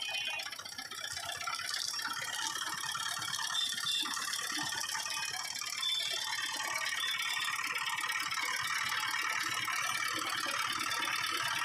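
Sugarcane juice crushing machine running, its grooved steel rollers and gears rattling in a fast, even, steady rhythm as cane stalks are fed through and crushed.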